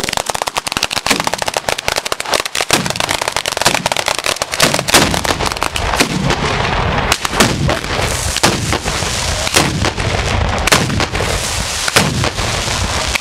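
Ground-level firework battery in the Bolognese style (batteria alla bolognese) going off. A fast crackle of many small firecrackers in the first few seconds gives way to heavier bangs, about one a second, over a continuous rumble.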